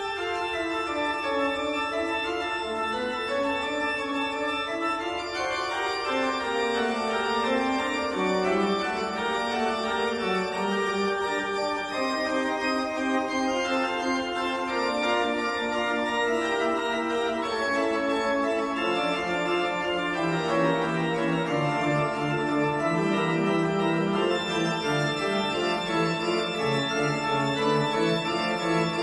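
Organ music: sustained chords over a slowly stepping bass line, held at an even volume.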